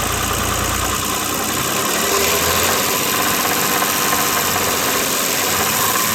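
A 1988 BMW 528e's 2.7-litre M20 straight-six engine running steadily. Its owner is chasing an intermittent part-throttle rattle over cylinder number 3, which he does not think is a rod knock.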